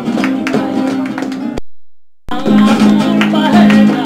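Home camera recording of a woman singing over acoustic guitar, with people clapping along unevenly, played back with an unwanted knock taken out by spectral repair. About halfway through, the playback cuts out for under a second, then the music starts again.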